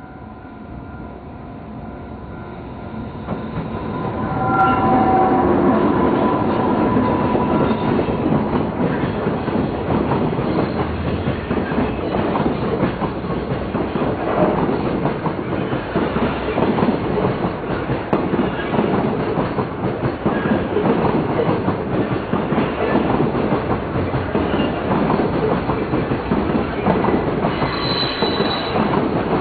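A JR Freight container train hauled by an EH500 electric locomotive approaches and passes close by. The sound swells over the first few seconds, then the container wagons run past with a steady rapid clickety-clack of wheels over the rail joints. There is a brief high squeal near the end.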